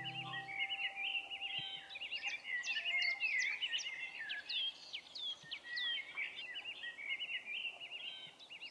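Several songbirds singing at once: quick repeated chirps and trills, with clear downward-sliding whistles, densest through the middle.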